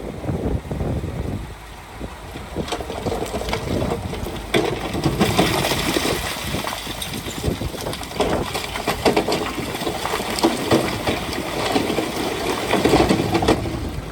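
Heavy earthmoving machinery at work: a diesel engine running steadily, with irregular clanks and crunching throughout. A rushing hiss of wind on the microphone grows louder from about five seconds in.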